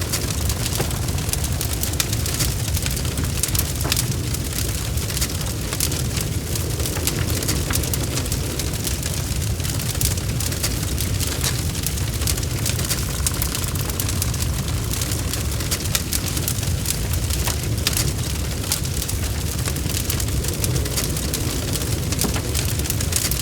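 Wood fire burning in a fireplace: a steady low rumble of the flames with frequent sharp crackles and pops.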